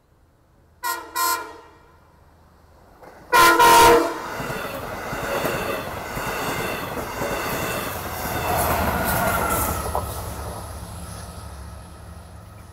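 Long Island Rail Road commuter train sounding its horn at a grade crossing: two short blasts, then a longer, louder one. Its double-deck coaches then rumble and clack past over the crossing, the noise fading near the end.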